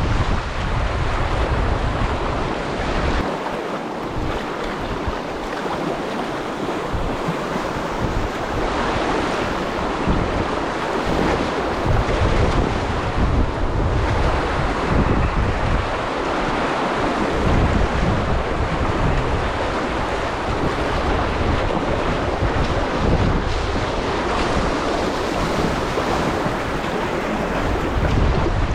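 Glacier-fed river water rushing steadily, with wind buffeting the microphone in uneven low gusts.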